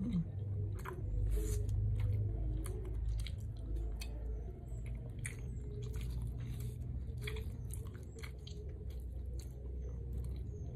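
A person chewing budbod, soft sticky rice cake, close to the microphone, with irregular wet mouth clicks and smacks.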